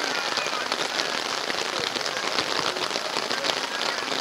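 Rain pattering steadily close to the microphone: a dense run of small drop ticks.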